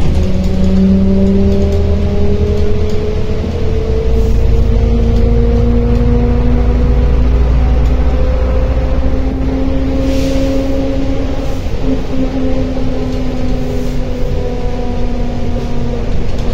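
Articulated MAZ-105.065 city bus heard from inside the cabin: a low diesel engine and drivetrain rumble with a whine whose pitch rises slowly for about ten seconds as the bus gathers speed, then levels off. There is a brief hiss about ten seconds in.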